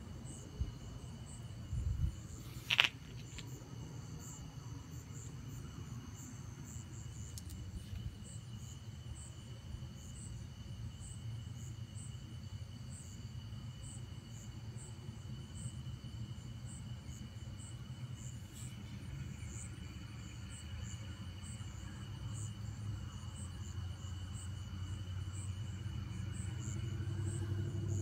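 Crickets and other night insects chirping steadily, a regular high chirp repeating over a constant insect drone, with a low rumble underneath. A short thump and then a sharp click come about two to three seconds in.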